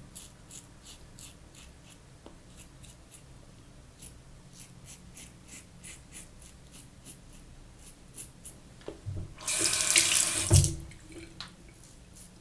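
Rockwell 6S safety razor scraping stubble through lather in a quick series of short, crisp strokes. About nine and a half seconds in, a tap runs for about a second and a half, the loudest sound, then the scraping strokes resume.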